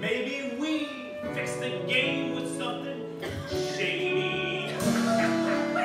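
Instrumental stretch of a stage-musical show tune, with held chords and melody.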